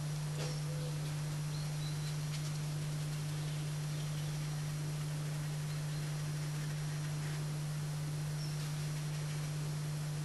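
A steady low electrical hum, a single unwavering tone, with a few faint short high chirps and light ticks over it.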